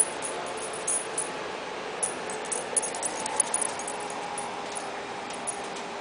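Hairless kittens' claws scratching and clicking on a carpeted cat tree and blanket as they play: a scatter of light sharp clicks, thickest about two to four seconds in, over a faint steady hum.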